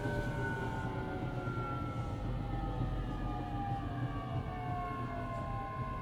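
JR Kyushu 817-series electric train heard from inside, its traction inverter and motors whining in several tones that fall slowly in pitch over a steady low rumble as the train slows for a station. This unit is an odd-sounding car whose motor whine resembles the Keio 7000 series.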